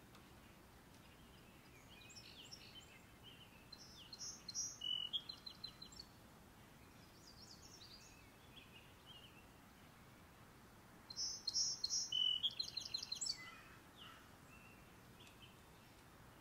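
Small songbird singing outdoors: two short phrases of high chirps, each ending in a rapid trill, about seven seconds apart, with a few softer chirps in between.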